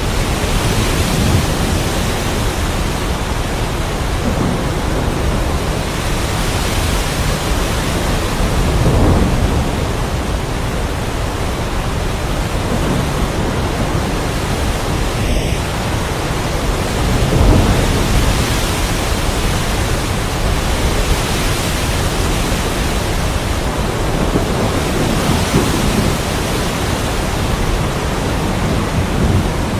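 Heavy rain as a steady hiss, with low thunder rumbles swelling up several times.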